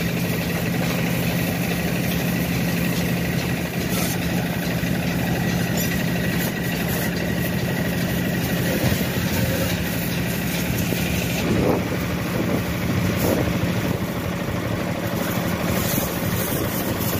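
High-pressure washer running steadily: a constant low machine hum under the hiss of the water jet spraying onto mud-caked tractor tyres.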